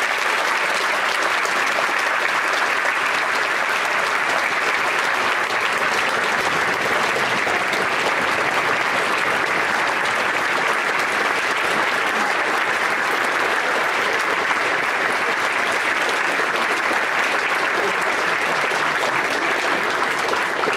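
Audience giving a long, steady round of applause.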